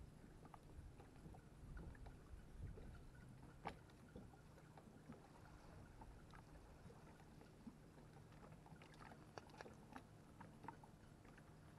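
Faint lapping of small ripples washing over a pebble shore, with scattered small clicks and trickles among the stones.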